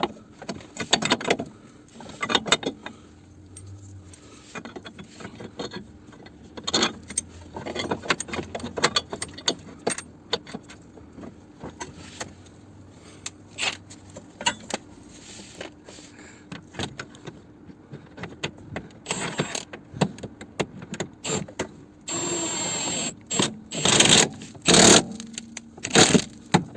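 Metal tools and bolts clinking, knocking and scraping as subframe and engine-mount bolts are fitted, in irregular clusters. Near the end a steady mechanical whir runs for about two seconds, followed by several loud short bursts.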